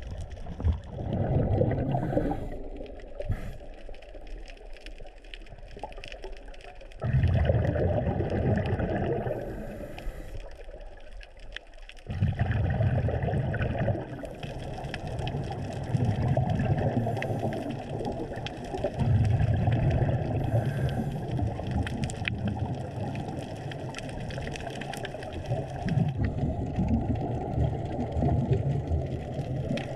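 Scuba exhalation bubbles rumbling and gurgling underwater, in bursts a few seconds long with quieter pauses between breaths, over scattered sharp clicks.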